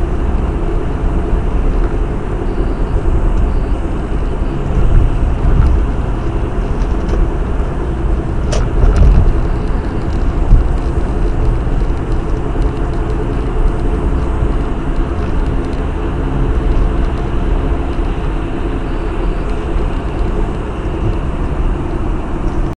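Steady low rumble of road and engine noise inside a car moving at highway speed, as picked up by a dashcam, with one sharp click about eight and a half seconds in.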